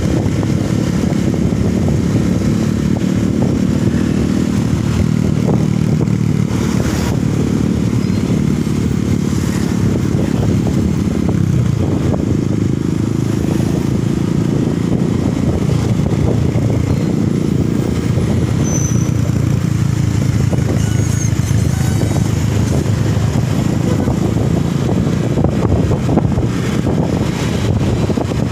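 Steady drone of a road vehicle's engine and road noise while travelling, with the engine note wavering slightly and never stopping.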